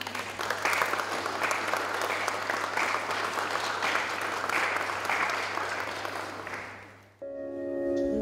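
Audience applauding: dense hand-clapping that fades away about seven seconds in, after which music begins.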